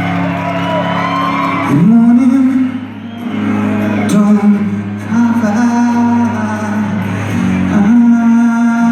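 Live rock band playing, with a male singer holding long, gliding notes over the instruments.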